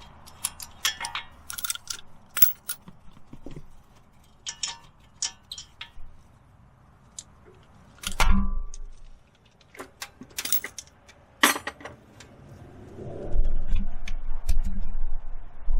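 Metal hand tools (sockets, wrenches) clinking and being handled during work on a car's front hub. There is a scatter of light clinks and one louder ringing metal clank about eight seconds in, then low rumbling handling noise near the end.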